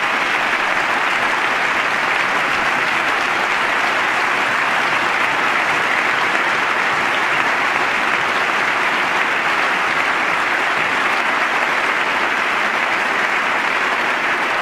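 Large audience applauding, a long unbroken round of clapping that holds steady throughout.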